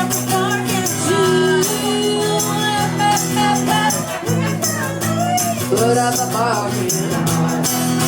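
Live band playing a pop-rock song, with sung vocals over steady guitar and bass chords and a shaken tambourine.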